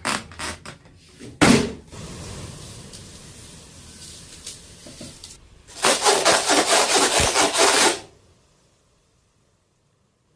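Foley sound effects made by hand: a few sharp knocks, then a loud hit about a second and a half in that runs into a steady rubbing scrape, then a fast run of rasping strokes for about two seconds before the sound stops.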